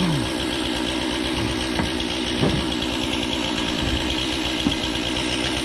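Two-stroke chainsaw idling steadily after being throttled back from a cut, with a few faint clicks.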